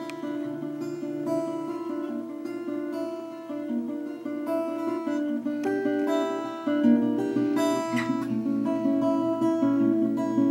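Instrumental introduction to a song: a melody of plucked notes over sustained chords, with a deeper bass part coming in about two-thirds of the way through.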